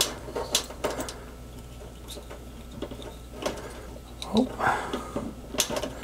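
Light rustling and scattered small clicks of insulated wires being handled as heat shrink tubing is slid over a soldered splice, over a low steady hum.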